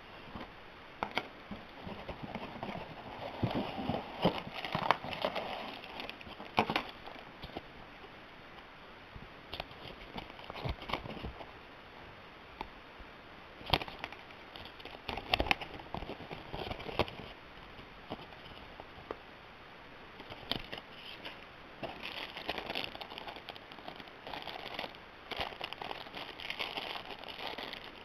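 Scattered clicks, taps and rustling from a small portable speaker and its packaging being handled and unpacked.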